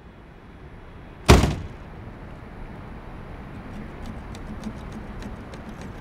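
A single loud door slam about a second in, over a rising outdoor background hiss. From about three and a half seconds in, light clicks begin ticking at about four a second.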